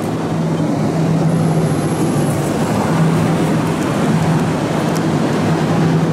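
City street traffic noise: a steady rumble of passing and idling vehicles with a constant low hum underneath.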